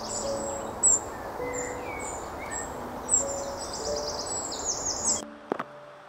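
Eurasian wren singing: a rapid string of loud, high, sharp notes running into a fast trill. The song cuts off suddenly about five seconds in.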